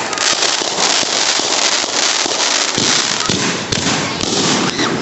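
Fireworks going off: a dense, continuous barrage of crackling pops, with a few deeper booms mixed in.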